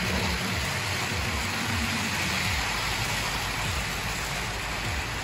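An H0-scale model freight train of tank wagons rolling past close by, its wheels running on the track: a steady rushing noise.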